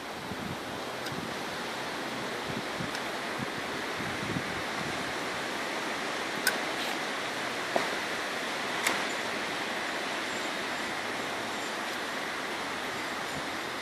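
Steady wind-like rushing noise, with a few short sharp clicks around the middle as pepper plants are handled during picking.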